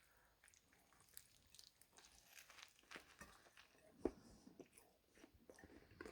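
Faint biting and chewing of a steak sandwich on soda bread: scattered small crunches and mouth clicks, the loudest about four seconds in.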